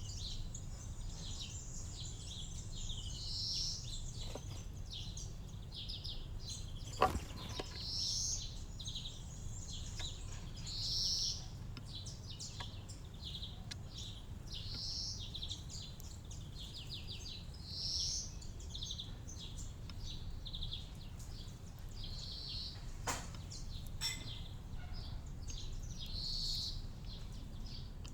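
Small garden birds chirping and calling, with a brighter call repeated every two to three seconds over many quick chirps. A steady low rumble runs underneath, and two sharp clicks stand out, about seven seconds in and again near the end.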